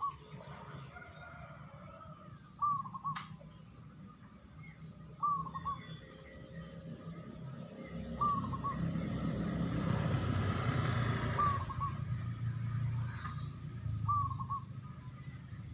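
Zebra dove (perkutut) cooing: short, bubbling phrases repeated about every two and a half to three seconds. A broad rushing noise swells up around the middle and fades again.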